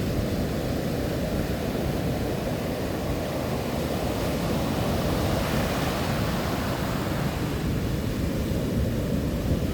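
Rough sea with waves surging and crashing in a steady rush of noise, a bigger wave swelling and breaking about halfway through.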